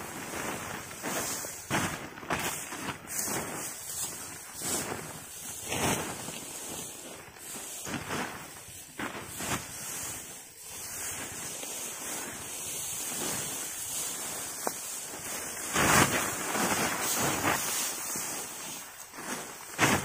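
Rustling and crackling of dry harvested rice stalks as sheaves are gathered and laid onto plastic tarps, over wind buffeting the microphone. A louder rustle comes about three-quarters of the way through.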